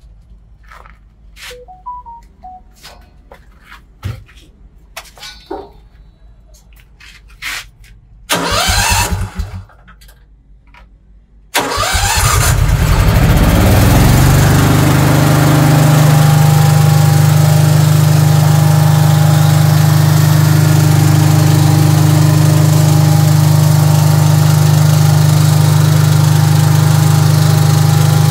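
Large Fireman petrol generator's engine being started: after some clicks and handling knocks, it cranks briefly about eight seconds in, then cranks again a few seconds later and catches, speeding up and settling into a loud steady run.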